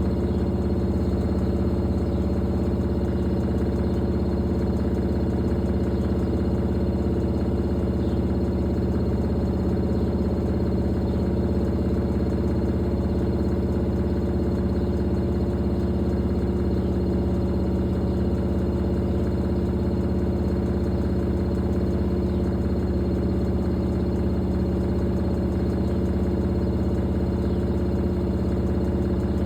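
Fisher & Paykel Pride MW511 washing machine running with a steady, even hum that holds one pitch throughout.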